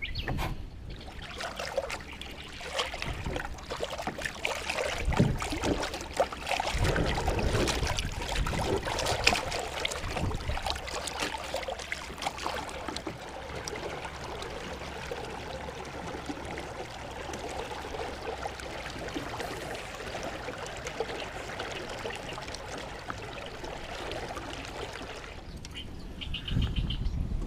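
Water trickling and lapping around a small fishing boat on a river, with irregular louder splashes and knocks in the first half, then steadier and quieter.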